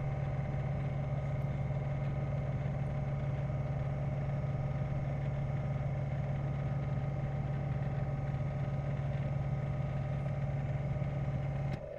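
Lathe of a Shoptask lathe-mill combo running steadily, a constant hum with a strong low tone and a few fainter held tones above it, as a bronze eccentric strap is run in on the freshly turned eccentric sheave until it turns freely. The sound cuts off abruptly near the end.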